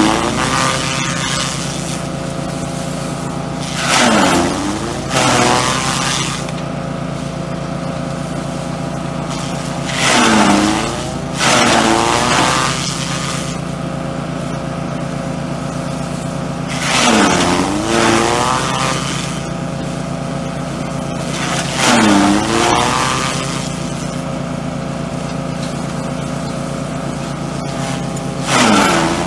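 Elephant grass chopper driven by a small engine, running steadily. Several times, roughly every six seconds, a bundle of grass goes through the blades with a loud rushing shred, and the engine note dips under the load and then picks back up.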